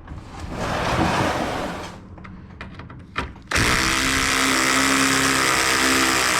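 Cordless drill running a bolt in, with a click and then a steady motor whine that starts about three and a half seconds in and keeps going. The bolt's threads carry thread-locker, so the drill is working against it.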